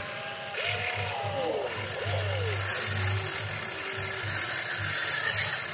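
Electric motors and gearboxes of a radio-controlled tracked excavator whining and whirring as it slews its cab and lowers its boom and arm. The whine rises and falls in pitch several times as each motor speeds up and slows down.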